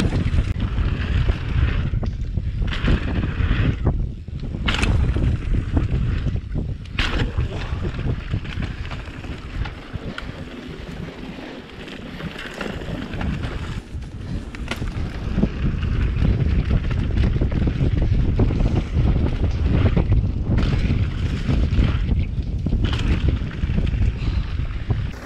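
Wind buffeting the microphone of a camera worn by a rider on a mountain bike descending a dirt singletrack, over a steady rumble of the ride. Scattered sharp knocks and rattles come from the bike going over bumps, and the wind eases for a few seconds in the middle.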